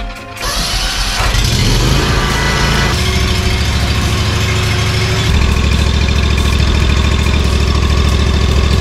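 Kawasaki FS600V V-twin engine on a stand-on zero-turn mower running steadily, its speed stepping up about three seconds in and again about five seconds in.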